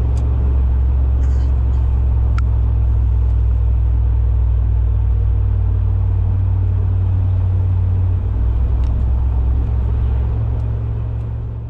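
Exhaust drone of a 2002 Cadillac DeVille's Northstar V8 heard from inside the cabin while driving, through a Thrush welded performance exhaust with the resonator deleted: a steady, loud low drone that eases a little about eight seconds in and fades near the end.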